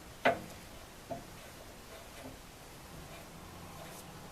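A sharp knock just after the start and a smaller knock about a second later, then only a faint steady background.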